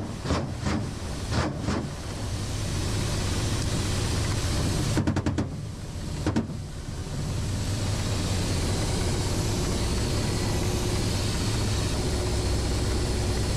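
Ka-52 attack helicopter's engines and rotor running steadily, heard from inside the cockpit. A quick burst of rapid sharp bangs comes about five seconds in and a single bang about a second later, which is weapon fire at ground targets.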